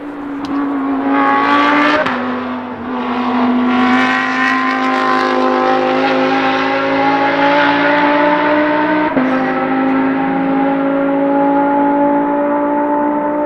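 Lamborghini Huracán Super Trofeo EVO racecar's naturally aspirated 5.2-litre V10 under acceleration, its pitch climbing steadily through each gear. It drops sharply at two upshifts, about two seconds in and about nine seconds in.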